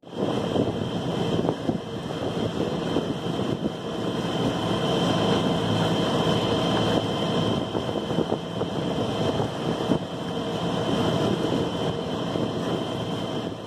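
Boat engine running steadily, with wind rushing over the microphone.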